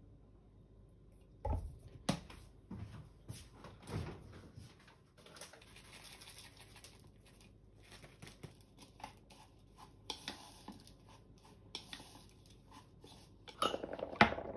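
Kitchen handling sounds: a few knocks as a bottle and utensils are set on the counter, a rustling stretch as ground sesame is shaken from a plastic bag, and near the end chopsticks clattering against a glass bowl and a small ceramic dish while the eggplant and shiso are mixed.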